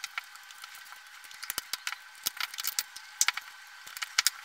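Irregular small clicks and light metallic rattles of hands working the sheet-metal brackets of a projector's LCD and prism assembly, coming thickest from about a third of the way in.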